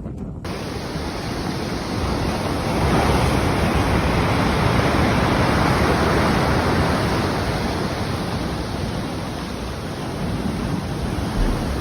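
A loud, steady rushing noise that starts abruptly, swells a few seconds in and eases slightly toward the end.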